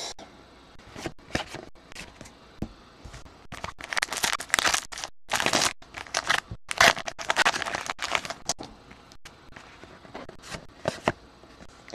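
Crinkly wrapper of a trading-card pack being torn open and pulled apart by hand, a crackling rustle that comes in uneven bursts with sharp little clicks. It is loudest about four to five seconds in and again around seven to eight seconds.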